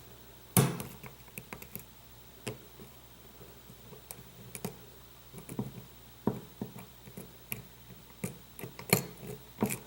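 Irregular small clicks and ticks of a lock pick and tension bar working the pins of a lock cylinder, with a sharper click about half a second in.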